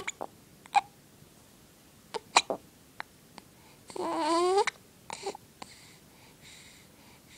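A baby hiccuping, several short sharp hiccups at uneven intervals, with a brief whiny cry about four seconds in.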